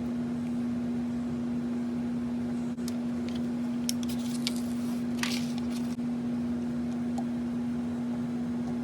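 Steady electric motor hum on one low tone, with a few light clicks and a short scrape about halfway through.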